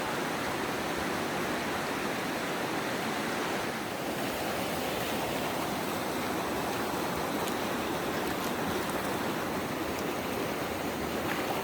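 Fast-flowing mountain stream rushing steadily, a constant hiss of moving water.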